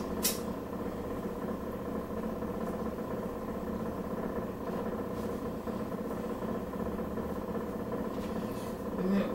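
A steady mechanical hum with several fixed tones over a low rumble, unchanging throughout, with one sharp click just after the start.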